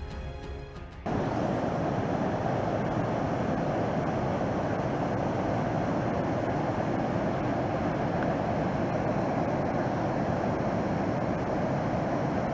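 Intro music cuts off about a second in and gives way to a steady rushing outdoor ambience.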